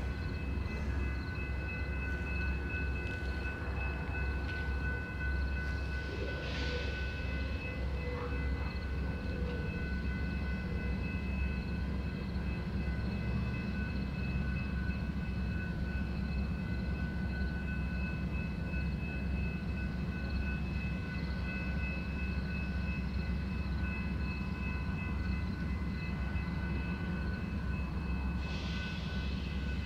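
Amtrak Superliner passenger train standing at the platform with its P42DC diesel locomotives idling. A steady low rumble runs under several steady high-pitched whines, with a short hiss about six seconds in and another near the end.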